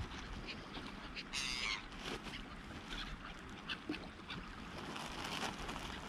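A flock of gulls calling over open water: many short, scattered cries, with one louder call about a second and a half in.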